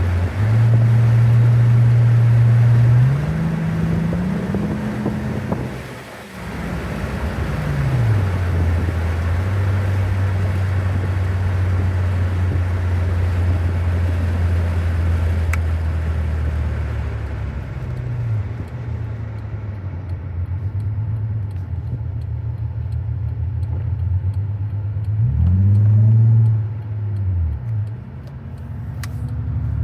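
2000 Honda Accord V6 engine running under way, its note climbing in pitch as it accelerates a few seconds in, then dropping back and holding steady, with another brief climb and fall near the end. The owner is chasing a whirring noise on acceleration and a loss of power above about 3,500 rpm.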